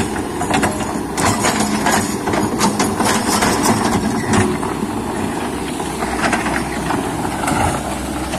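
Kobelco excavator's diesel engine running steadily, with frequent short clanks and knocks from the machine at work.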